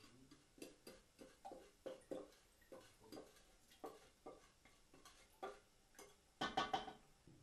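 A utensil tapping and scraping inside a glass bowl to knock the last of the wet mixture into a cooking pot. The light clinks come about twice a second, with a louder flurry of knocks about six seconds in.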